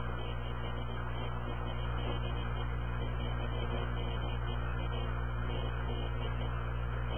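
Steady low electrical hum with an even hiss over it.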